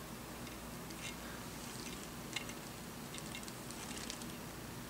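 Faint, scattered light ticks and scrapes as a thrust washer is worked by hand into place between the lay gear and the gearbox casing, over a steady low hum.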